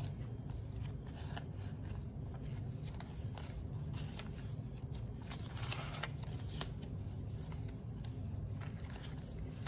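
Paper US dollar bills being counted by hand: irregular soft papery flicks and rustles as the notes are fanned and peeled off one by one, over a low steady hum.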